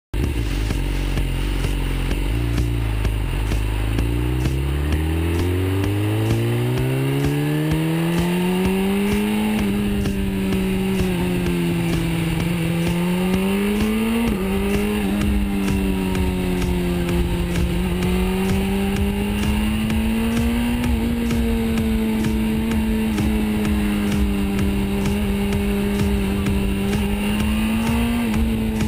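BMW S 1000 RR's inline four-cylinder engine under way. It runs low at first, then its pitch climbs steadily for several seconds as the bike speeds up, then holds a fairly even cruise with gentle rises and falls and a quick rise and drop about halfway through.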